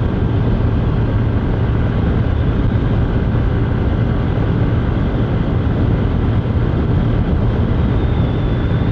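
Steady rush of wind on the microphone of a 150 cc motorcycle at highway speed, about 100 km/h, with the motorcycle running underneath.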